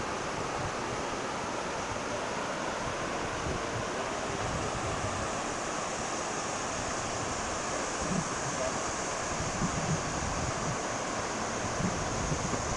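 Steady rushing of floodwater, an even noise with no let-up, with a few short low bumps in the second half.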